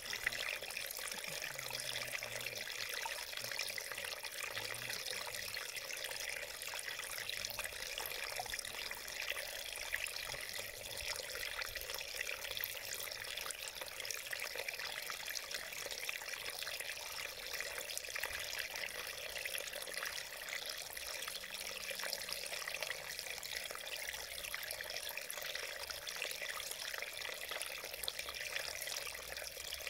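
Shallow mountain stream running over a small rock step: a steady splashing trickle, bright, with little deep rumble.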